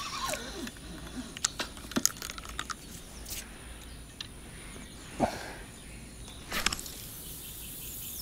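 Scattered light clicks and rustles of fishing tackle being handled, with two short swishing noises, one about five seconds in and one about six and a half seconds in.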